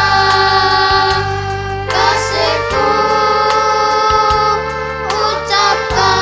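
Children's choir of girls singing in unison, holding long notes over backing music with a steady beat; the sung note changes about two seconds in and again near the end.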